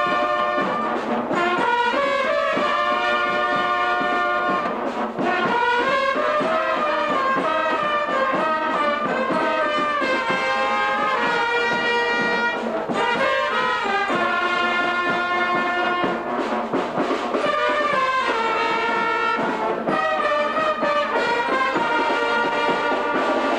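Swiss Guggenmusik band playing a tune: trumpets and saxophones in loud held brass chords that change every second or two, over snare drums.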